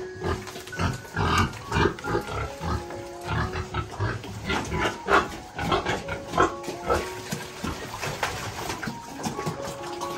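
Pigs grunting in short, irregular bursts, with a melody of background music playing underneath.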